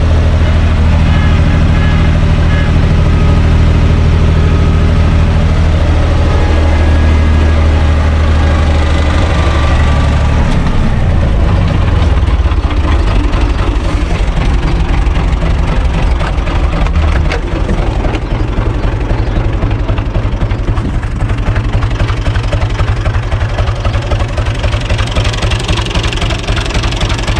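UTB 445 tractor's diesel engine running steadily at driving speed, heard from the open cab. Its note changes about ten seconds in, and from about seventeen seconds it settles into idling with even, rapid firing pulses.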